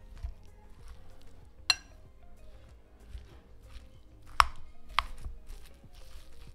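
Steel spoon stirring and mashing a soft potato-and-vegetable sandwich filling in a glass bowl. A ringing clink of spoon on glass comes under two seconds in, then two sharper knocks about half a second apart past the middle, over soft squishing.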